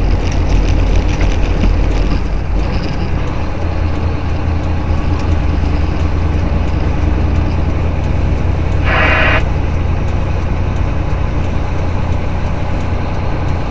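Steady drone of a semi truck's engine and tyres heard from inside the cab while driving, with a short high buzz about nine seconds in.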